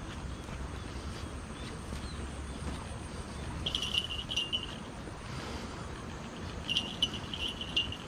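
Insect chirping in rapid high-pitched trills, in two bursts: one about four seconds in and another near the end. Under it runs a steady low rumble.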